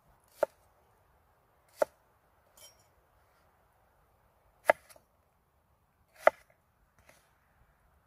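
A broad-bladed knife chopping through an onion onto a wooden cutting board: four sharp, separate chops a second or more apart, with a soft rustle of the pieces between the second and third.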